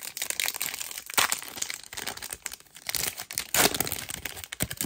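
An NBA Hoops trading card pack's wrapper being torn open and handled, with irregular crinkling and tearing.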